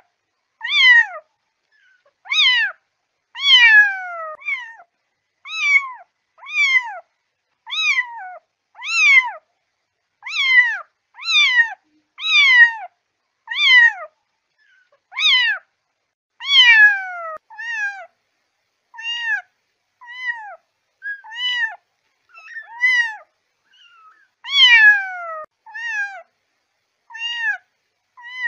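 A kitten meowing over and over, about one high-pitched call a second, each call falling in pitch. The calls grow shorter and more clipped in the second half.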